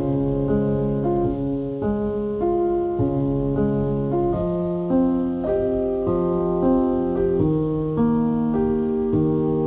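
Background piano music: slow, held chords that change every second or so.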